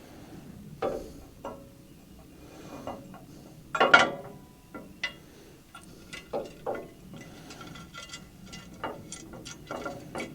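Hand work on the steel parts of a sawmill under assembly: scattered metallic clicks, clinks and clanks with some ratcheting, and one louder clatter about four seconds in.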